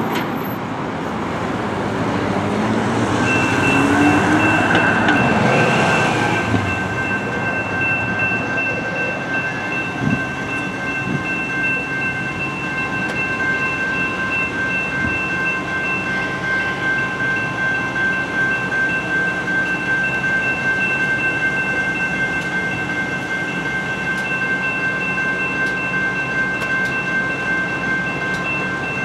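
Railroad crossing's General Signals Type 2 electronic bells start ringing about three seconds in and keep ringing steadily as the crossing activates, over street traffic noise. A vehicle passes loudly between about three and seven seconds in.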